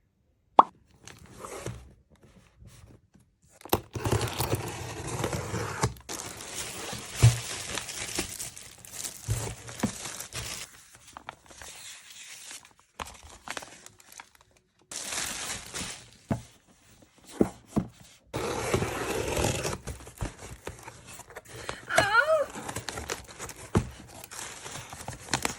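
Packaging being opened and handled by hand: bursts of rustling and tearing, with sharp clicks and knocks, the loudest click about half a second in. A short wavering squeak sounds a little after the twenty-second mark.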